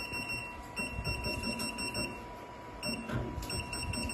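Programmable sewing machine's control panel beeping in rapid runs of short high beeps while the direction key is held to jog the needle position to the next point, with a pause of about half a second midway. A faint steady tone and low knocking from the machine run underneath.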